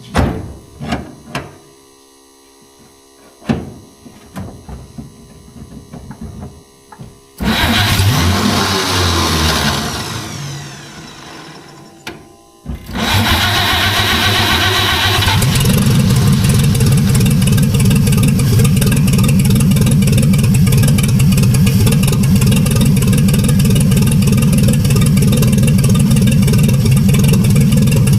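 1948 Chevrolet truck straight-six being started for the first time after decades of sitting, on a freshly rebuilt carburetor. A few sharp knocks come first, then the starter cranks the engine for about five seconds and stops. Just after, the engine catches, runs fast for a couple of seconds and settles into a steady run.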